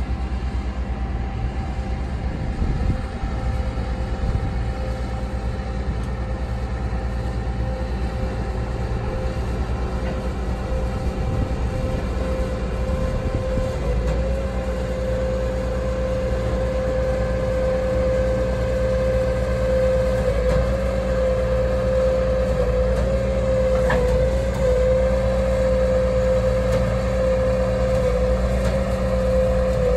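Engine of a rail track-maintenance machine running as it travels along the flatcar deck, a steady low rumble. A steady whine rides over it and grows louder from about halfway through.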